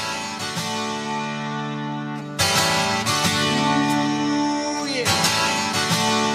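Music that cuts in abruptly out of silence, made of steady held notes, growing louder about two and a half seconds in.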